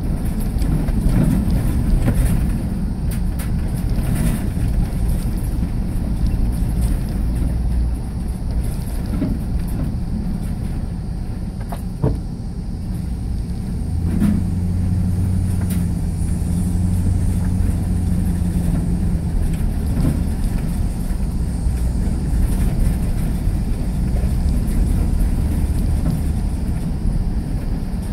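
Car driving slowly, heard from inside the cabin: steady low road and engine rumble, with the engine hum coming up for several seconds about halfway through. A single sharp click just before that.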